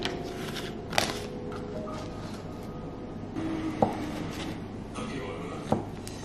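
Foil butter wrapper rustling as it is peeled open, then a kitchen knife cutting a block of butter on a cutting board. Three sharp knocks come about a second in, near the middle and near the end.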